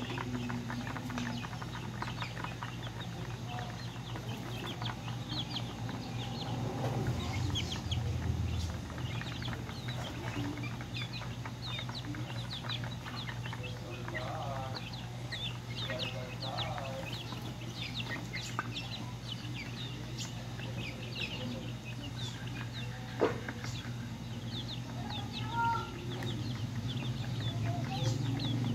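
Young chickens peeping almost continuously in short high calls, with a few lower clucks about halfway through. There is one sharp click a little later, over a steady low hum.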